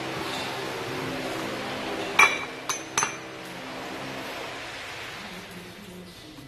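Three sharp metallic clinks close together about two to three seconds in, the first the loudest, from raw chicken bones and hands knocking against a stainless-steel tray during hand marinating. Faint steady low tones sound underneath.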